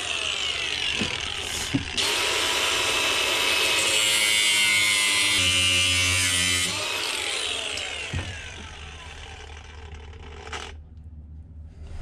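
Angle grinder with a thin cutoff disc cutting into steel, running loud for about seven seconds, then winding down and stopping.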